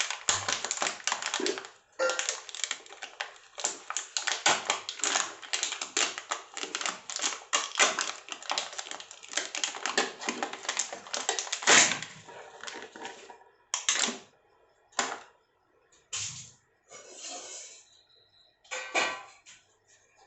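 Rapid, dense clicking and crinkling for about twelve seconds, then scattered single clicks and short handling noises.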